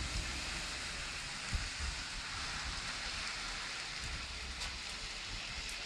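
Steady rain falling on wet pavement and puddles: an even hiss with a few faint drip ticks.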